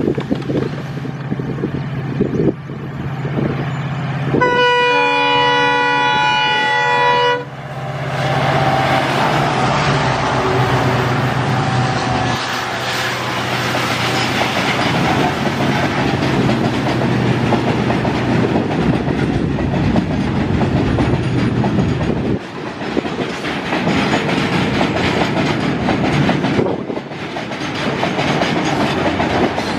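Two EMD WDG4-class diesel locomotives, with two-stroke V16 engines, approach hauling a goods train, the engines running with a low drone. About four seconds in, a locomotive sounds its multi-tone horn for about three seconds. The loaded freight wagons then roll past with a steady clickety-clack of wheels on the rails.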